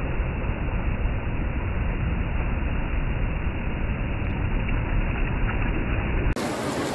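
Steady low rumble and hiss of a car driving on the road, heard from inside, cutting off abruptly about six seconds in.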